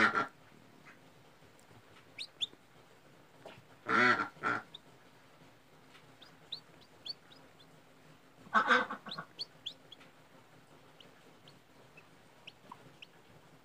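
A hen clucking loudly three times, about four seconds apart. In between, a hatching chick peeps faintly in short, thin, high chirps.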